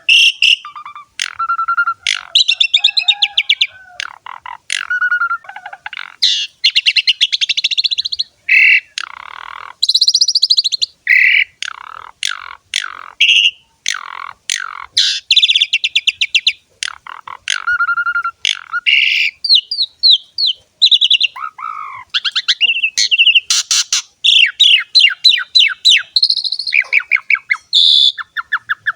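Asian pied starling singing without pause: a varied run of rapid clicking, harsh rasping 'ngerek' phrases and short whistled notes.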